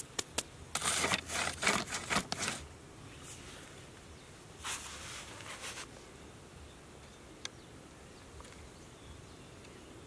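Rustling and scraping of hands handling a plastic colander and loose sand, in dense bursts for the first two and a half seconds and again about five seconds in, then a single light click about seven and a half seconds in.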